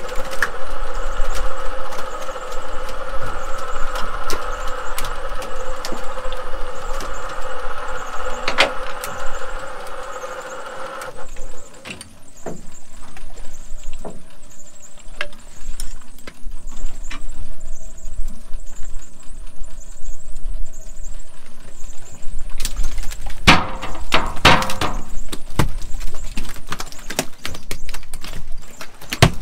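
Electric cod-jigging machine whining steadily as it reels line, cutting off about eleven seconds in; a few sharp knocks of gear near the end.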